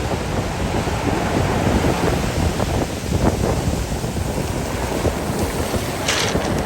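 Stormy Black Sea surf breaking and washing on the shore, with strong wind buffeting the microphone; a brief sharper hiss of breaking water near the end.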